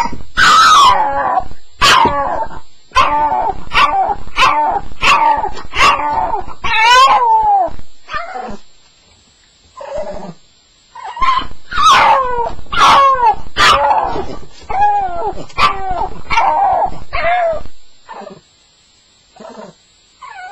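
Staffordshire bull terrier crying in the night: a string of high, falling whines and howls, some wavering, in two runs with a short pause near the middle, then a few faint whimpers near the end.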